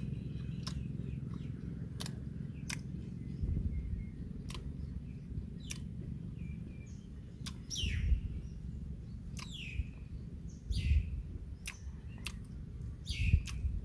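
A man chewing a mouthful of cooked duck egg: wet mouth clicks and lip-smacks every second or so, with a few louder smacks near the middle and end.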